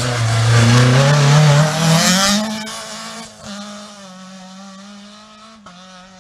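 Rally car engine revving hard as the car accelerates past, its note rising in pitch for about two seconds before breaking off. After that comes a quieter, steady engine drone from another rally car further down the road.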